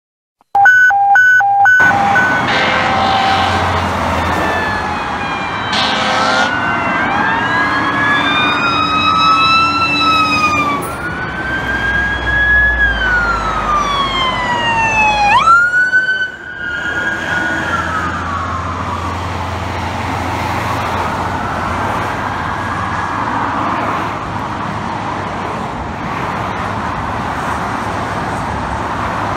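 Emergency vehicles passing at speed with sirens going: a few short horn blasts at the start, then several sirens wailing over one another, their pitches sweeping up and down, including the slow wind-up and coast-down of a mechanical Federal Q siren. About sixteen seconds in, a sharp upward sweep sounds, and the sirens then fade into the steady noise of highway traffic.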